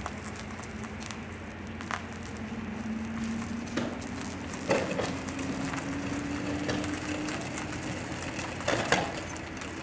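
Gritty crunching and crackling of a de Havilland Tiger Moth biplane being pushed out of its hangar on its wheels over concrete, with a few sharp knocks. A faint steady hum slowly rises in pitch in the background.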